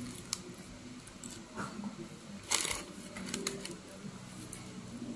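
Paper food wrappers rustling and crinkling as fries are picked out of them by hand, with a few soft clicks and one louder crinkle about two and a half seconds in.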